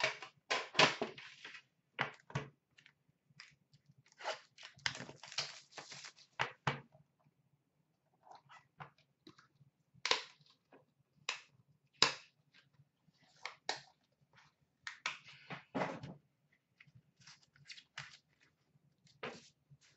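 Hands handling and opening a hockey card box: scattered short taps, knocks and rustles of cardboard and plastic packaging. They come thickest about four to seven seconds in, with a sharper knock about twelve seconds in.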